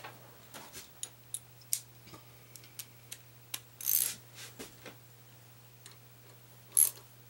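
Scattered small metal clicks and ticks as the bolts and lock washers of a connecting-rod bearing cap are handled and fitted by hand, with a brief louder clatter about four seconds in and a sharp click near the end, over a low steady hum.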